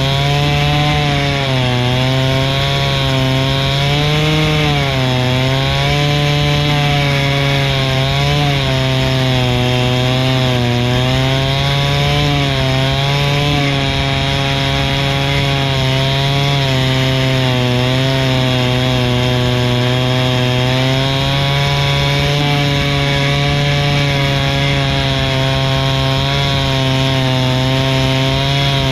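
Two-stroke chainsaw mounted in a chainsaw mill, held at full throttle as it rips lengthwise through a log. The engine note stays high and steady, wavering slightly as the cutting load changes.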